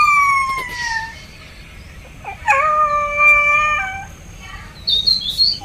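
A puppy howling in two long cries, the first sliding down in pitch, the second held steady and starting about two seconds in. It is the distress cry of a pup separated from its owner and searching for him. Short bird chirps come near the end.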